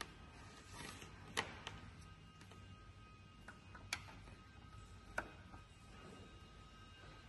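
A few sharp clicks of a USB plug being handled and pushed into a mini PC's front USB port, three of them loud and spread a second or more apart, over faint background music.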